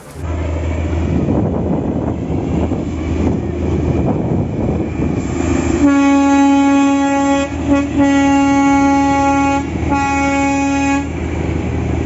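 Darjeeling Himalayan Railway toy train's horn sounding three times, two long blasts and then a shorter one, over the steady low rumble of the train's engine.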